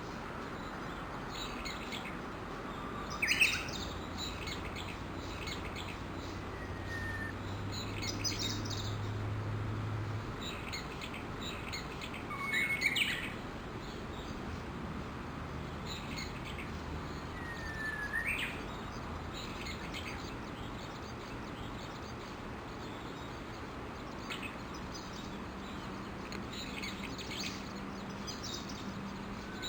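Several Japanese bush warblers calling: scattered short calls and sliding whistled notes over a steady background hiss, loudest about 3, 13 and 18 seconds in.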